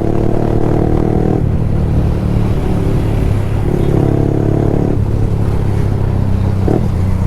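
Yamaha R15 V3's single-cylinder engine running under way through an aftermarket Akrapovic exhaust, a loud, steady exhaust note that swells twice, near the start and again in the middle.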